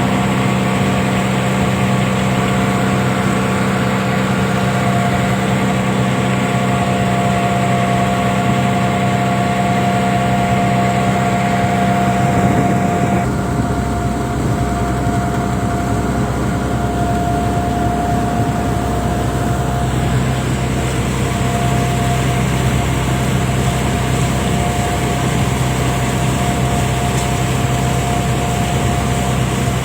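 Fishing boat's engine running steadily, its sound shifting a little about halfway through.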